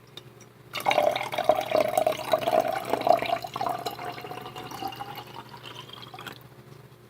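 Water poured into a glass for about five seconds, starting about a second in; the tone of the filling glass rises slowly as it fills.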